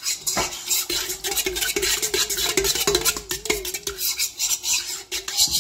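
A metal spoon stirring yeast into warm water in a stainless steel bowl, with quick, repeated scraping and clinking against the bowl.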